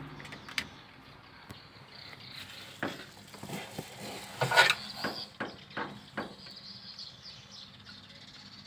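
Handling noise as hands work among the wiring and test lamp under a pickup's dashboard: irregular clicks and knocks, the loudest about four and a half seconds in. A faint, steady, high hiss runs underneath.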